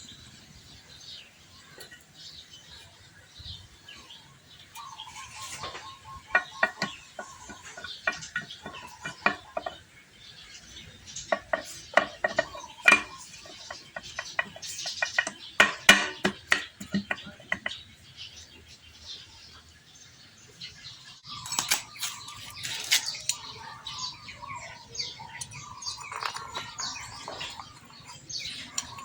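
Metal hand tools clicking and clinking against a motorcycle engine's side cover as it is bolted on, with quick runs of clicks.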